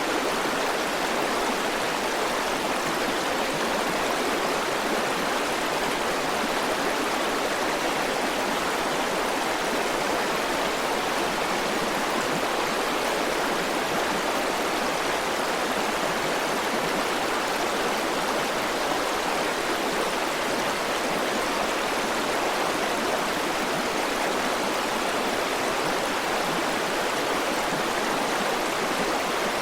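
A river's flowing water, a steady, even rush with no changes.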